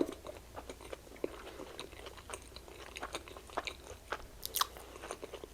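Close-up mouth sounds of a man chewing a soft slider burger: quiet wet smacking and small clicks.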